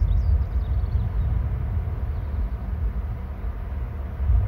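Wind buffeting an outdoor camera microphone, a low rumble that rises and falls in gusts. Faint high chirps of a bird in the first second.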